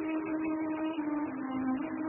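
Dramatic soundtrack music: slow held notes that step down in pitch a little past halfway and rise again near the end.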